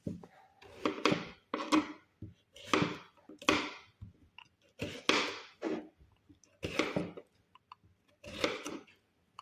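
Knife cutting through fruit and vegetables on a cutting board: a series of about eight short sawing strokes, each a burst of noise under half a second long, spaced roughly a second apart.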